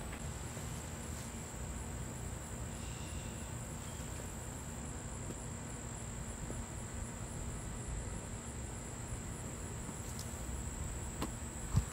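A steady high-pitched insect chorus trilling with a faint regular pulse, over a low outdoor rumble.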